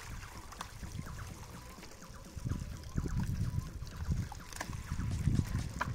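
Wet sandy concentrate pouring from a metal bucket into a plastic classifier sieve, trickling at first, then coming heavier and louder from about halfway as the thick slurry slides out.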